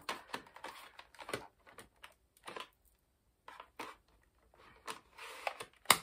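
Plastic clicks and scrapes as the battery pack of an Ultenic U10 Pro cordless stick vacuum is handled and slid into the handheld body, ending with a sharp click near the end as it snaps into place.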